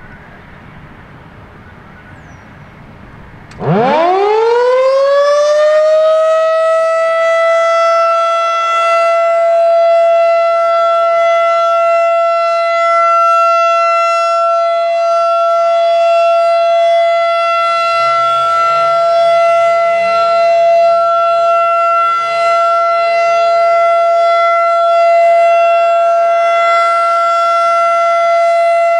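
Federal Signal 2001-DC outdoor warning siren starting up about three and a half seconds in. Its pitch rises quickly, then it holds one steady, loud tone: the steady Alert signal of a siren test.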